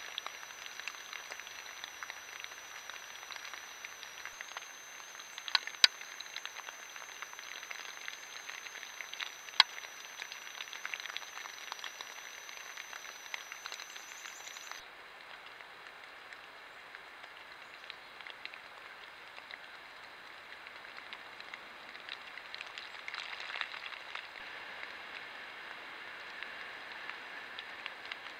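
Trail camera microphone hiss with scattered crackles and a few sharp clicks. A faint steady high electronic whine runs through the first half and stops abruptly about halfway through.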